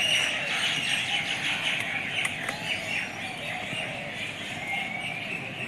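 A chorus of many small birds chirping, with short calls overlapping continuously.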